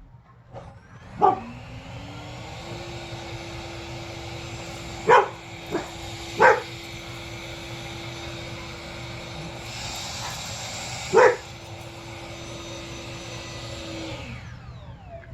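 Electric ducted fan of an RC model F-15 jet running with a steady whoosh and hum, winding down with a falling pitch near the end. A dog barks five times over it, about a second in, three times around five to six and a half seconds in, and once about eleven seconds in.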